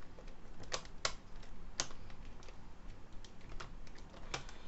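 Irregular sharp clicks and taps from hands working on a Raspberry Pi case and its fan wiring, a handful spread unevenly, the loudest about a second in.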